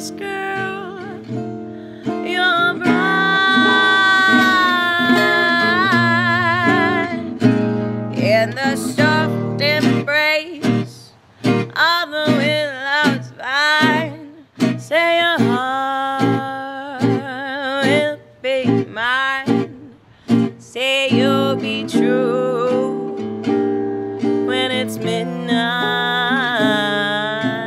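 A woman singing a song, her long held notes wavering with vibrato, over plucked guitar accompaniment.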